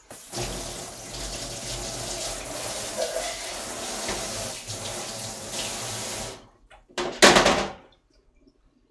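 Kitchen sink faucet running onto hands in the basin for about six seconds, then cut off, followed near the end by a second short, louder gush of water.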